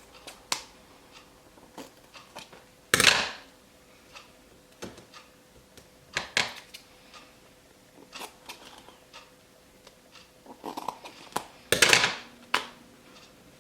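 Duct tape pulled off the roll in two loud rips, about three seconds in and near the end, between scattered scissors snips and clicks from handling the stiff paper box.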